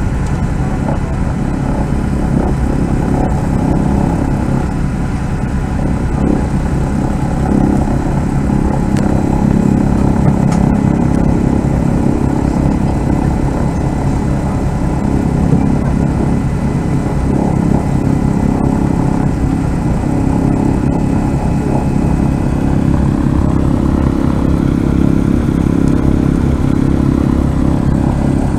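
The DC-3's radial piston engines run steadily at low power while the airliner taxis, heard from inside the cabin as a dense, even drone with a slight rise in tone near the end.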